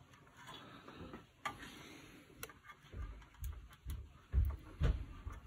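Metal multimeter probe tips tapping and sliding from pin to pin on an IC, heard as scattered light ticks, with a few low bumps in the second half. This is a continuity check of neighbouring pins for solder bridges, and no meter beep sounds.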